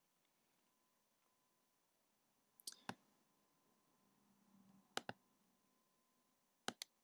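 Computer mouse button clicks over near silence: three quick pairs of sharp clicks, spread a couple of seconds apart.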